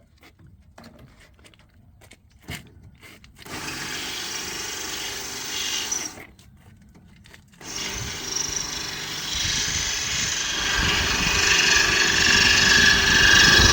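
Power drill boring out rivets in a bus body panel: a few faint clicks, then the drill runs for a couple of seconds, stops, and starts again about eight seconds in, getting louder as the bit bites into the long rivet.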